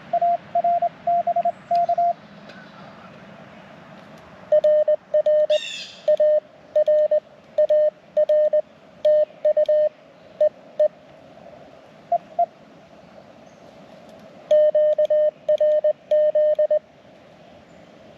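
Morse code (CW) on an amateur radio: a single steady tone keyed on and off in dots and dashes, sent in several groups of characters with pauses between them.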